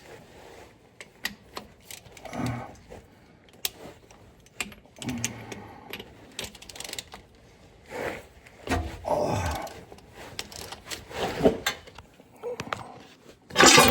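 Socket ratchet clicking in irregular bursts, with knocks and scrapes of tools against metal, as the 24 mm drain bolt on an LT77 gearbox is worked loose.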